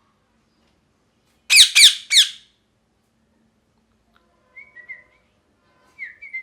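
Ringneck parrot giving three loud, harsh screeches in quick succession about a second and a half in, then a few soft whistled notes near the end.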